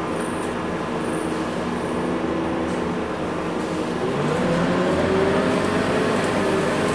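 Scania K230UB single-deck bus's diesel engine heard from inside the passenger cabin, running steadily, then rising in pitch from about four seconds in as the bus accelerates.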